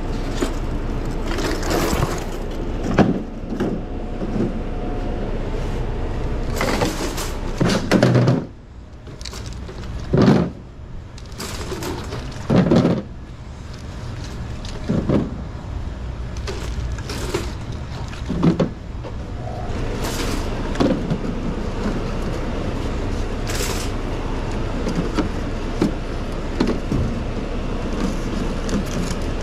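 Plastic two-liter soda bottles being handled and set down one after another while moving from a wire shopping cart onto a loaded hand truck: a string of irregular knocks and thuds, about every one to three seconds, over a steady background noise.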